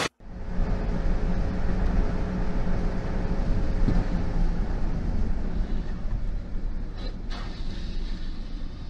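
Steady road and engine noise of a car driving at highway speed, heard from inside the cabin, with two brief knocks about seven seconds in.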